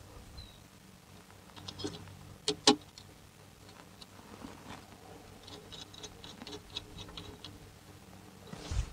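Small screwdriver clicking and scraping against the screw terminals of a datalogger's terminal block as wire leads are fastened. Two sharp clicks come about two and a half seconds in, followed later by a run of faint ticks.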